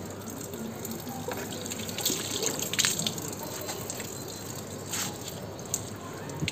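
Flush water running and dripping out of the Yamaha YZF-R15 V2's open coolant drain and splashing onto paving, with a few sharp clicks around the middle. The water is rinsing leftover old green coolant out of the cooling system before it is refilled.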